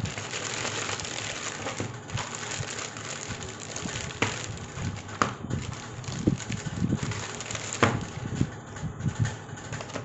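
A small packet being opened and handled: packaging crackling and rustling, with a few sharp clicks and soft knocks as the contents are taken out.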